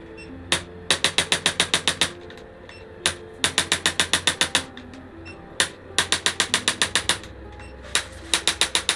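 Chiropractic adjusting gun firing rapid clicks, about nine a second in bursts of roughly a second, each burst led by a single click, four bursts in all. Soft background music plays underneath.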